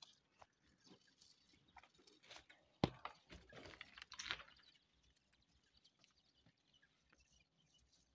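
Faint scattered clicks and taps around a brooder of quail chicks, with a sharper click about three seconds in and a few soft chick peeps in the middle.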